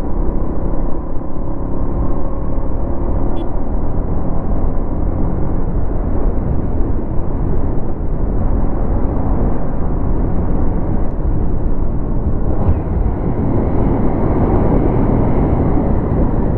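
Yamaha MT-15's 155 cc single-cylinder engine running steadily while the bike is ridden, mixed with a constant rush of wind on the microphone.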